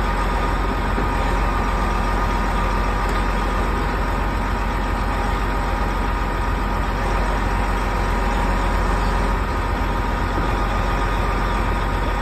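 Heavy-duty rotator wreckers' diesel engines running steadily under load to drive their booms and winches as an overturned cement truck is lifted, with a steady high whine over the low rumble.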